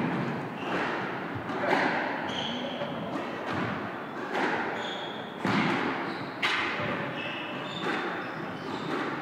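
Squash ball being struck by rackets and smacking off the court walls about once a second during a rally, each hit echoing in the enclosed court. Brief sneaker squeaks on the wooden floor between shots.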